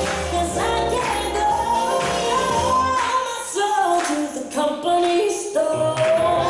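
Recorded music with singing, the accompaniment to a ballroom foxtrot: held, stepping melody notes over a bass line.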